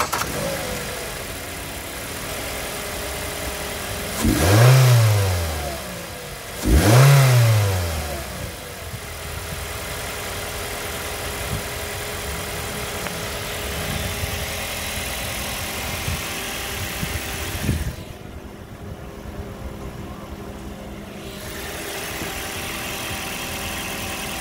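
2007 Ford Focus four-cylinder petrol engine idling, revved twice in quick blips a few seconds in, each rising and falling back to a steady idle. Near the end the higher hiss drops away for a few seconds while the idle carries on.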